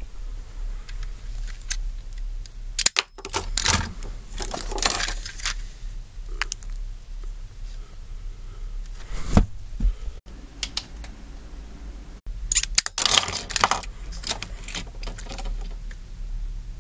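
Clicking and rattling of small hard objects being handled, in two clusters of quick clicks, one about three seconds in and one around thirteen seconds, with a single knock near the middle, over a low steady hum.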